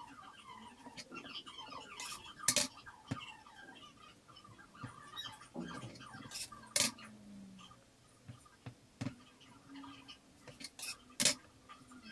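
A knife blade and hands working cut semolina dough squares on a wooden counter, straightening their edges: a series of sharp knocks of the blade on the wood, with light scraping between them.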